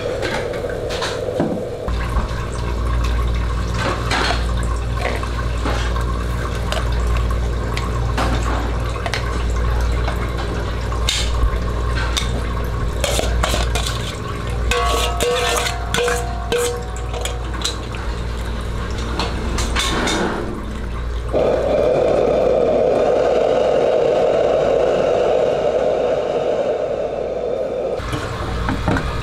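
Soup boiling in a steel wok, with a metal ladle clinking and scraping against the wok over a steady low rumble. Near the end the clinks stop and a louder steady hiss of boiling liquid takes over for several seconds.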